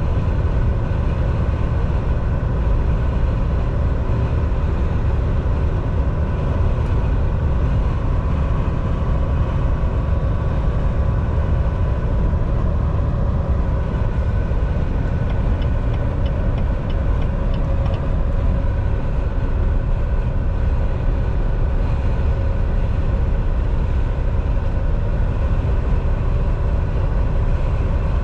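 Inside the cab of a Volvo semi-truck at highway speed: a steady engine drone with tyre and road noise. A brief run of light, evenly spaced ticks comes about halfway through.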